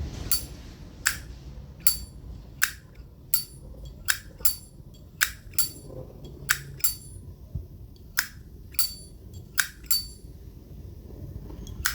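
Vintage Zippo lighter's hinged steel lid being flicked open and snapped shut over and over. This gives about sixteen crisp metallic clicks with a short bright ring, roughly one or two a second. The clear, ringing clack is the lid sound collectors prize on an original lighter.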